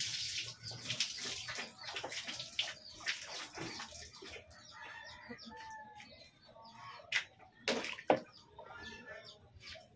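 Yard ambience of short chirping and clucking bird calls. In the first few seconds there is a hissing noise full of small clicks, and there are two sharp knocks about eight seconds in.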